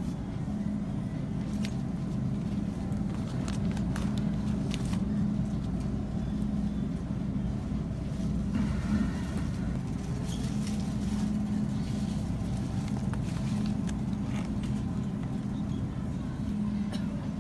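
Steady low hum of a grocery store's open refrigerated display cases, with faint shoppers' voices in the background and a few light clicks.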